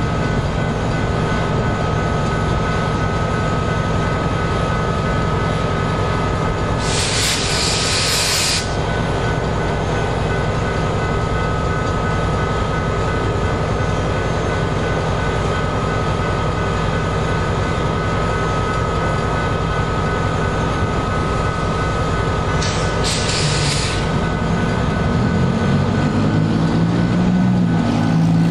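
Freight train rolling slowly through a railroad crossing behind EMD SD59MX diesel locomotives: a steady rumble of engines and cars under a constant ringing tone from the crossing signal. Two short bursts of hiss come about a quarter and three-quarters of the way through, and a locomotive engine note rises near the end.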